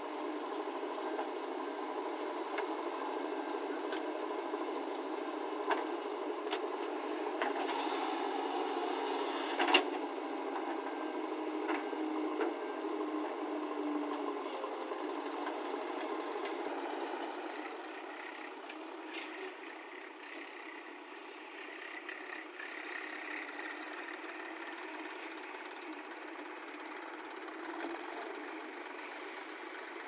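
Diesel engine of a JCB 3DX backhoe loader running steadily as it works, with scattered clanks and knocks and one sharp knock about ten seconds in. The engine sound drops a little from about eighteen seconds on.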